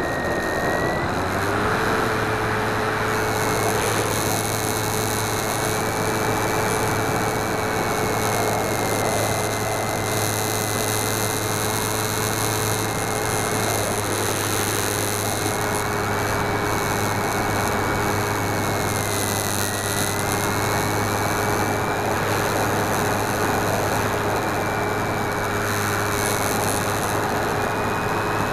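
Skywalker 1900 RC plane's electric motor and propeller running steadily in flight, with air noise over the on-board camera. The motor's whine dips and then rises in pitch about a second in, then holds steady.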